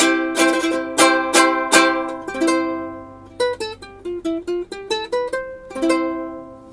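Magic Fluke Flea soprano ukulele, with a polycarbonate body, played unamplified. It starts with several strummed chords, moves to a short run of single plucked melody notes, and ends on one strummed chord left ringing.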